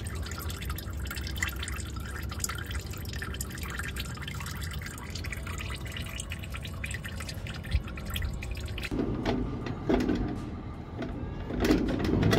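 A thin stream of oil trickling and splattering into a drain pan as it runs off an oil filter's drain chute. Near the end this gives way to a few louder, duller knocks.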